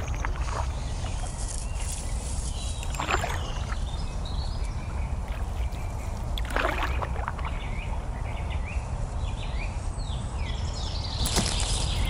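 Riverside outdoor ambience: a steady low rumble with birds chirping over it, and a few louder sweeping calls about three, six and eleven seconds in.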